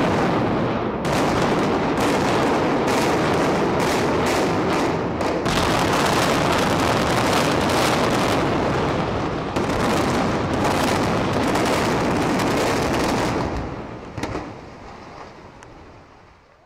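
Explosive demolition charges going off in a rapid string of sharp cracks, merging into the rumble of reinforced concrete towers collapsing. The din holds loud, then dies away from about thirteen and a half seconds in.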